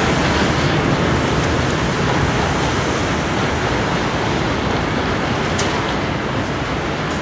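Heritage passenger carriages rolling past over a concrete viaduct: a steady rumble and rush of wheels on rails, fading slightly.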